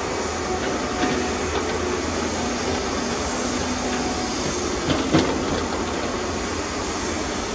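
Heavy diesel earthmoving machinery running steadily, with a metallic clank about a second in and a louder knock about five seconds in.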